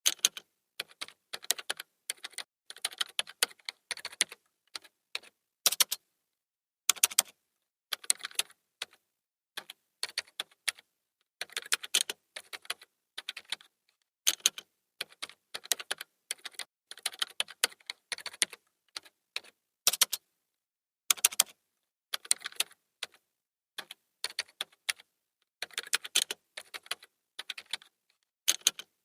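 Typing on a computer keyboard: quick, irregular runs of key clicks broken by short pauses, with a few louder single strokes, like the space bar or Enter, standing out now and then.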